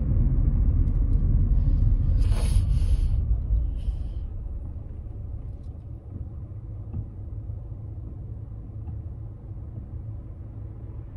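Low road-and-engine rumble inside a car's cabin. It eases off noticeably about four seconds in, with a brief hiss shortly before.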